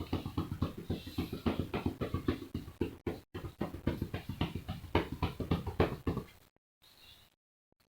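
A hand patting rapidly on a person's back, the percussion of chest physiotherapy, about six pats a second, stopping about six and a half seconds in. The patting is meant to loosen mucus in the lungs so that it can be coughed up.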